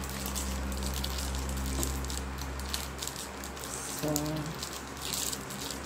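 Steady low hum of room noise with faint clicking and rustling, and a short murmur of a voice about four seconds in.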